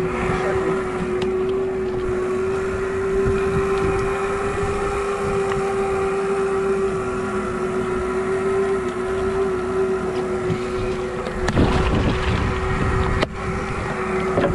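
Twin outboard motors running steadily at low speed, a constant hum with wind noise on the microphone. Near the end there is a brief louder rush of noise.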